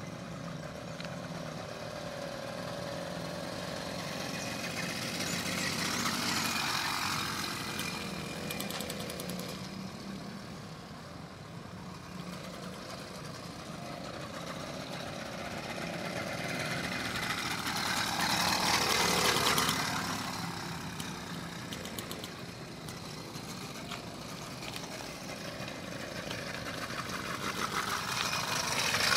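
Small motorized-bicycle engine running as the bike is ridden, swelling louder as it passes close about 6 seconds in, again around 19 seconds, and once more near the end.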